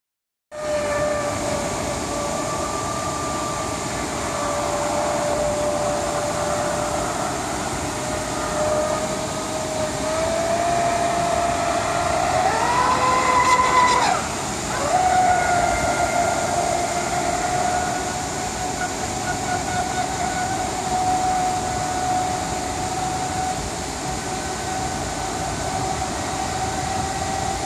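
RC catamaran boat's motor running at speed across the water: a steady high whine. Its pitch climbs about twelve seconds in, breaks off suddenly around fourteen seconds, then comes back a little higher and holds steady.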